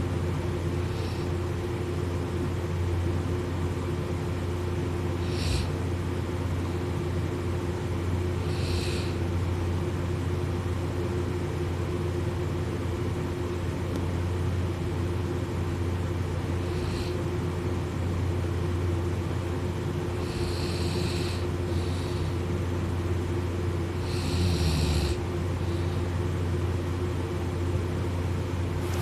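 A sleeping person snoring: short, breathy snores every few seconds, irregularly spaced, over a steady low hum.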